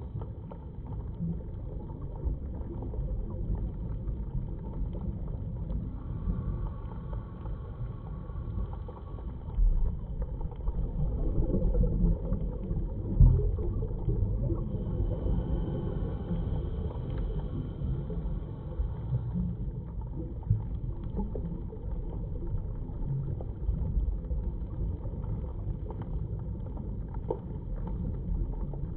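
Underwater ambient noise picked up by a submerged camera: a steady low rumble with fine crackling, swelling louder for a few seconds near the middle, with a faint thin whine now and then.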